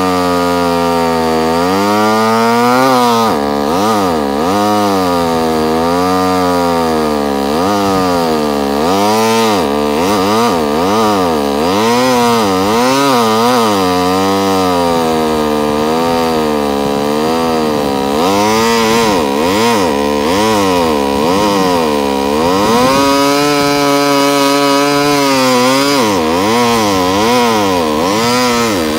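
Chainsaw cutting through a tree limb, its pitch rising and falling over and over as it works through the wood. It holds a steady pitch for a couple of seconds a little past two-thirds of the way through, then goes back to swinging.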